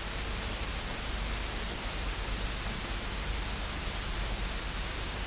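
Steady static hiss with a faint low hum underneath.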